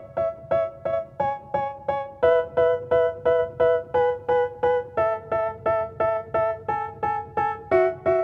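Music playing over Bluetooth through a 5.1-channel soundbar home theater system: an electric-piano riff of short, evenly repeated chords, about three a second, shifting to new chords a few times. It is the instrumental intro of a rap song.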